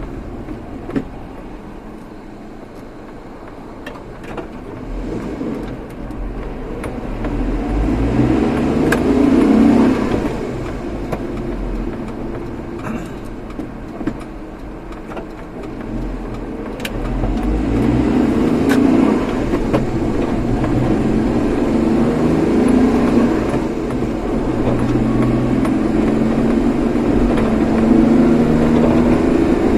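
Car engine and road noise while driving, the engine note rising as the car accelerates, loudest about ten seconds in and again over the last dozen seconds.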